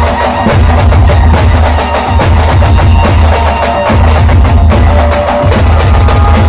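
Dhol-tasha band drumming: loud, rapid, dense drumming over a heavy, booming bass, with a few faint held tones above it.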